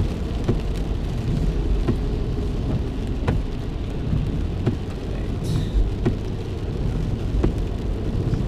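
Steady low rumble of a car driving, heard from inside the cabin, with scattered light ticks every second or so.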